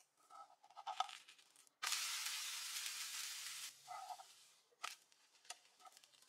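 Batter crepe (sru chakli) sizzling in a hot nonstick frying pan: a steady hiss that starts abruptly about two seconds in and stops two seconds later. A metal spatula clicks and scrapes against the pan as it pries the cooked crepe loose.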